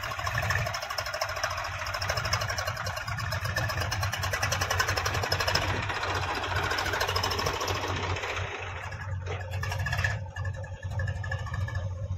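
Tractor diesel engine running steadily with a fast, even beat. About nine seconds in the sound changes: the higher part falls away after a couple of knocks, leaving a duller engine note.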